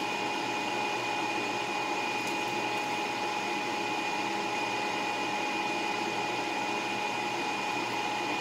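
Steady whir of a small electric motor running on, with a thin high whine held on one pitch.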